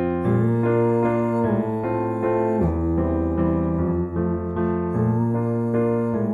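Background music: an instrumental passage of a song with sustained chords that change every second or two.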